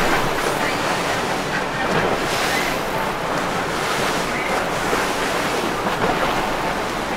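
Wind buffeting the microphone over the steady rush of surf and churning water.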